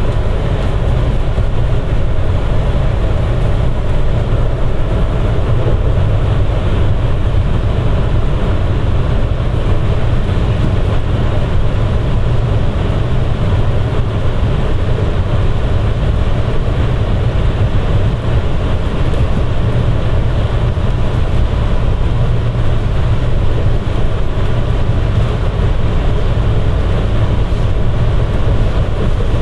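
Rubber-tyred automated people-mover train running steadily through a tunnel, heard from inside the car: an even, heavy rumble with a faint constant tone above it.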